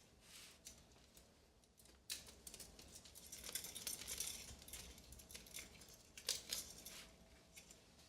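Faint handling noise of a Flueblocker wool chimney plug, its handle being screwed in: light clicks, then rustling and scraping for several seconds with a few sharper clicks near the end.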